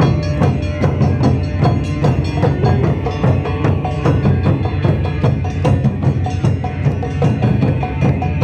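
Japanese taiko drums played live at a fast, driving beat, with plucked shamisen notes cutting through over the deep drum strikes.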